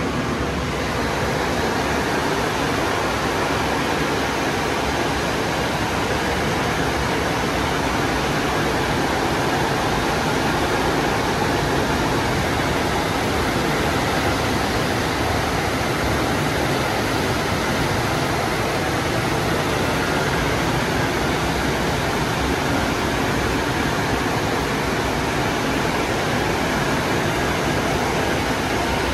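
Coleman Hanna Water Wizard touchless in-bay car wash running its cycle: a loud, even rushing noise that holds steady without a break.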